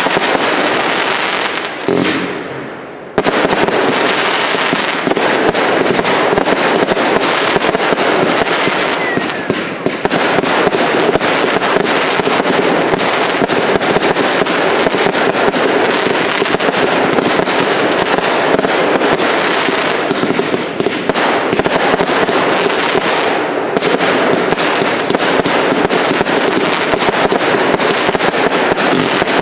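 Firework cakes (multi-shot batteries) firing a dense, near-continuous barrage of shots and crackling bursts. There is a brief lull about two to three seconds in, then the barrage resumes abruptly.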